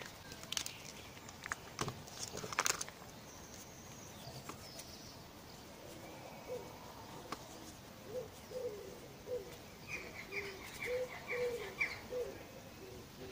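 Birds calling outdoors: a run of short, low cooing notes through the second half, with a quick series of higher chirps about ten seconds in. At the start, sharp clicks and crinkling from hands handling things on the table.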